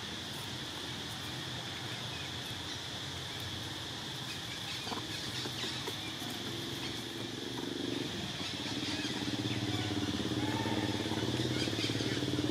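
A motor vehicle's engine running, growing louder from about halfway through, over a steady high-pitched drone.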